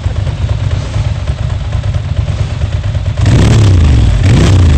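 Ducati L-twin motorcycle engine idling with an uneven low rumble, then revved hard twice in quick succession near the end.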